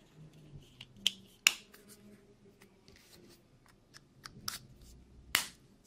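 Sharp plastic clicks and snaps from a Ford remote key fob's casing being handled and its halves snapped together, a handful of clicks with the loudest about a second and a half in and another near the end.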